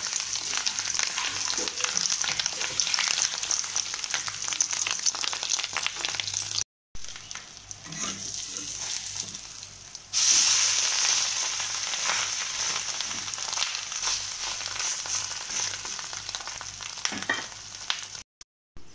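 Rohu fish roe cakes sizzling in hot oil in an iron kadai, with scattered crackles. The sizzle breaks off for a moment about a third of the way in and comes back softer. It grows loud again about halfway through, as a cake is lifted and turned with a spatula.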